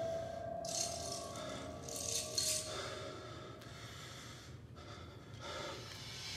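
Quiet accompaniment music: a held tone fades away over the first few seconds, while soft, hissy rattling swells come and go, like a shaker.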